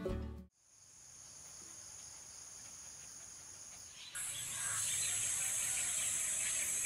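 Insects in tropical forest keeping up a steady high-pitched drone, with birds chirping over it. It gets louder about four seconds in.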